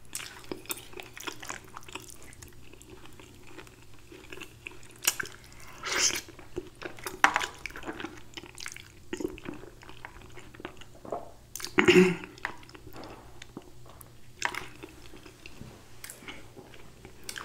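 Close-up wet mouth sounds of eating creamy fettuccine alfredo: chewing, lip smacks and slurping of noodles, as scattered short clicks with a few louder wet slurps.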